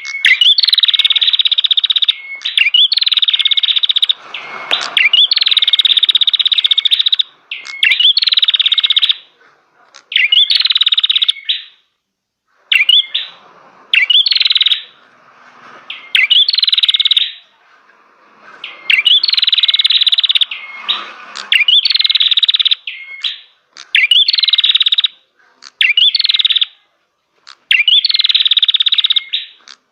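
A cimblek (prenjak), a small songbird, singing loudly close to the microphone: a string of buzzy, rattling phrases about a second long, each beginning with a quick upward note, repeated over and over with short pauses between.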